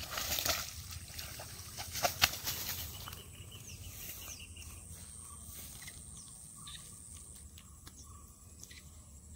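A hooked snakehead being hauled through wet grass and weeds on a rod, thrashing and rustling, with two louder bursts in the first few seconds and quieter rustling after.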